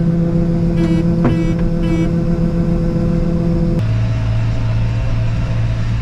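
Combine harvester heard from inside its cab, the engine and the unloading auger running steadily while it unloads corn, with a few brief high-pitched sounds about a second in. Near four seconds this cuts to a lower, steady tractor engine drone heard from inside the tractor cab.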